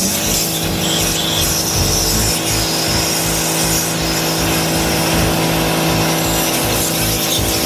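Pressure washer running, its high-pressure jet blasting a soda can standing in a pool of water: a steady hiss of spray over a steady pump hum.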